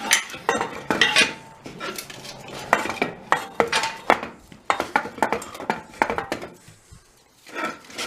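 Metal tools and parts clinking and knocking together, irregular sharp strikes several times a second with a brief ringing note about a second in.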